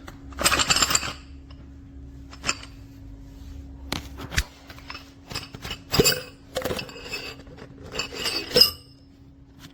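Steel SDS Plus drill bits clinking and rattling against each other as they are handled: a series of short metallic clinks, with a longer rattle about half a second in.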